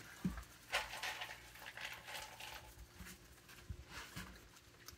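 Raccoon paddling its paws in a water dish, fishing for peanuts: faint scattered small splashes, taps and knocks against the dish.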